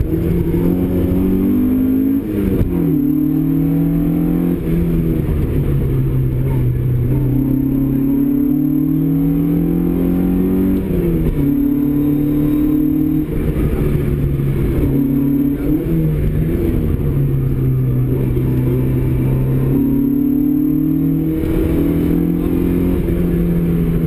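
Opel Kadett GT/E rally car's four-cylinder engine heard from inside the cabin, driven hard on a stage: the note climbs through the revs and drops back sharply several times at gear changes and lifts for corners.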